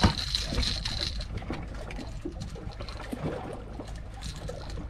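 Water lapping and trickling against a small fishing boat, with a few light knocks.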